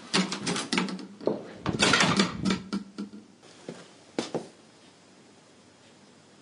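A run of irregular knocks and clatter in a small room over the first three seconds, a few more knocks about four seconds in, then faint room tone.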